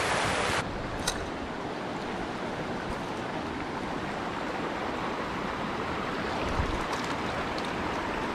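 Creek water running over rocks: a loud rushing riffle that drops abruptly, under a second in, to a softer steady flow.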